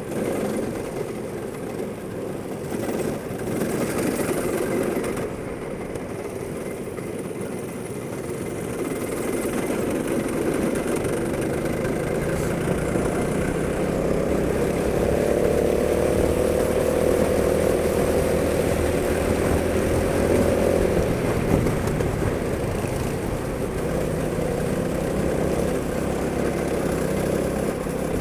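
Go-kart engine running, growing louder partway through, its pitch climbing slowly for several seconds and then dropping back as it eases off.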